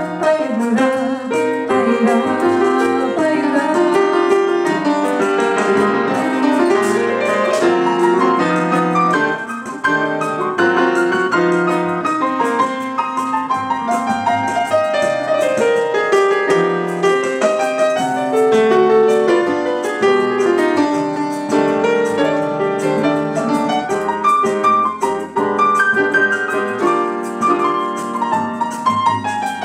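Solo piano playing an instrumental bossa nova passage, a continuous flow of chords and melody lines with no singing.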